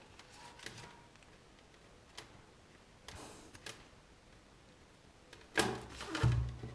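Handling noise from multimeter probes and their packaging: a few faint clicks and rustles, then louder rustling and knocking about five and a half seconds in.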